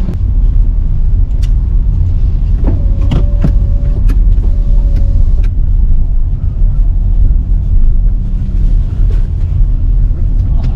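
Steady low rumble of wind buffeting the microphone, with a few faint clicks and a brief faint tone about three seconds in.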